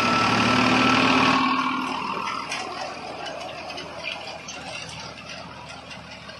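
NVT digger machine running, loud with a steady mechanical hum for about the first second and a half, then fading to a lower rattling clatter with scattered clicks.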